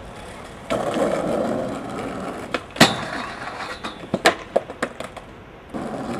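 Skateboard wheels rolling on concrete, with a sharp clack of the board striking the ground about three seconds in, followed by a few lighter knocks.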